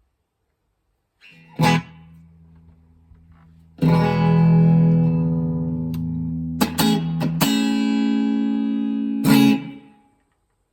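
Schecter OL-PT-TH thinline electric guitar played through a VOX MINI5 practice amp, strumming chords that ring out. There is a short stroke about a second and a half in and a chord held from about four seconds. A few quick sharp strokes lead into a new chord around seven seconds, and a last strum near nine seconds fades away.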